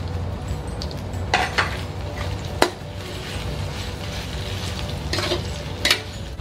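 Metal spatula stirring and scraping through tofu and tempeh in a wok, striking the pan in a few sharp clanks about one and a half, two and a half, and five to six seconds in.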